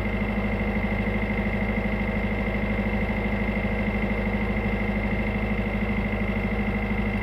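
Tugboat's diesel engine running steadily with a fast, even throb.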